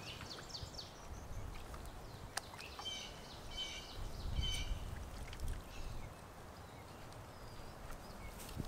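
A songbird chirping faintly in short repeated phrases over a low outdoor rumble. Soft low thuds and squelches come from bare feet stepping through shallow bog water and mud, loudest around the middle, with a dull thump at the very end.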